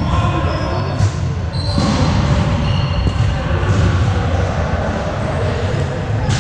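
Volleyball court sounds in an echoing gym: sneakers squeaking on the hardwood floor several times, and a volleyball striking with a sharp thud twice, about a second in and near the end, over a steady low rumble of the hall.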